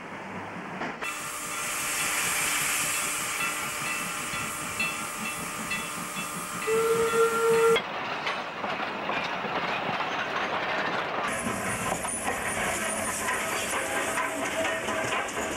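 New South Wales 30 class tank steam locomotive hissing steam as it works, with one short whistle blast about seven seconds in, the loudest sound. The character of the hiss changes abruptly a few times.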